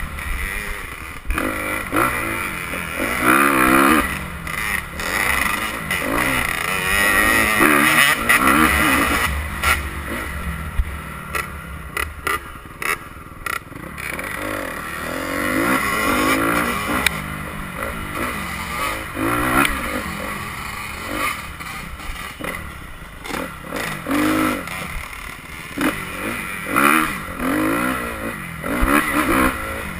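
Dirt bike engine heard from on board, revving up and down over and over as the throttle opens and closes, with knocks and rattles from the bike over rough ground.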